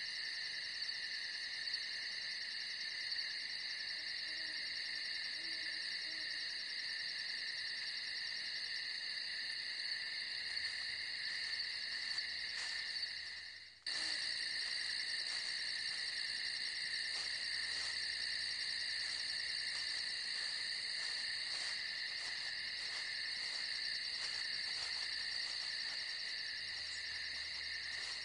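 Night insect chorus: a steady, high-pitched trilling from many insects at once. It fades away about halfway through and then comes straight back unchanged.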